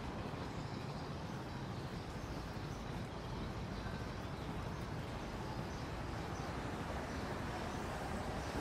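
Steady city street ambience: a low, even hum of traffic, with a few faint high chirps near the middle.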